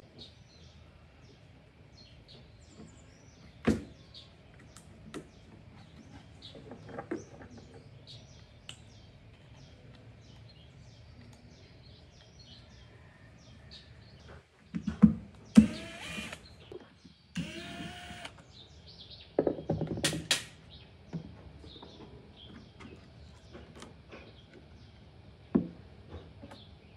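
A cordless drill-driver runs in three short bursts a little past halfway, one rising in pitch as it spins up, backing screws out of a wooden speaker cabinet. Sharp clicks of parts being handled come about four seconds in and near the end, with faint bird chirps throughout.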